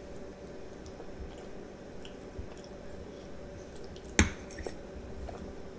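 Soft wet chewing of a mouthful of spaghetti, with a sharp clink of a metal fork against the plate about four seconds in and a few lighter taps after it. A steady low hum runs underneath.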